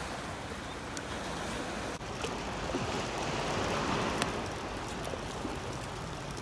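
Sea waves washing in, as a steady hiss of surf that swells with one larger wave about halfway through, with a few faint clicks.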